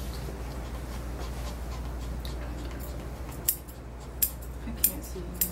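Small grooming shears snipping the hair on a dog's face: four crisp snips in the second half, about one every half second or so, over a steady low hum.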